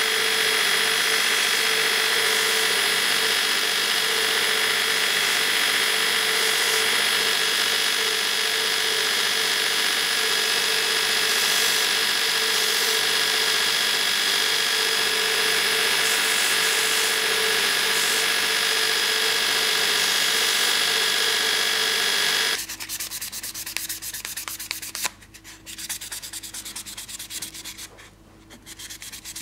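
Bench belt sander running with a steady whine over the hiss of the belt. About 23 seconds in this cuts off abruptly and gives way to rapid hand-sanding strokes of an abrasive strip on a wooden knife handle, with a few short pauses.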